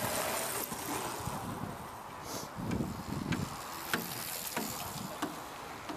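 Wind buffeting the microphone outdoors, with about five sharp, scattered clicks.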